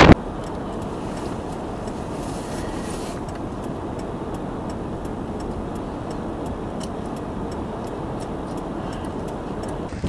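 Steady noise of a motor vehicle running while stopped, with a faint, even ticking throughout.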